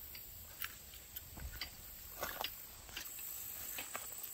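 Footsteps walking along a narrow dirt trail through tall grass and weeds, with grass brushing against the walker: irregular light steps and rustles.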